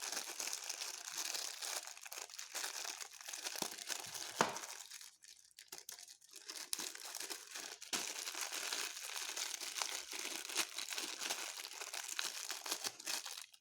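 Plastic packaging crinkling and rustling as action-camera accessories are unwrapped and handled, with two sharp clicks of plastic parts and a brief lull about five seconds in.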